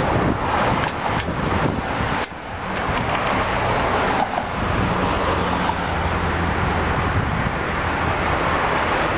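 Steady rumble of road traffic going by, loud enough to fill the room, with a few light clicks in the first couple of seconds.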